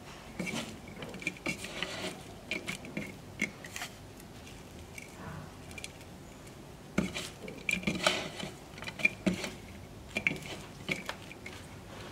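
Seasoned strips of banana stem being tossed by hand on a plate: light clicks and taps against the plate with a soft wet rustle, in two spells, the second starting about seven seconds in.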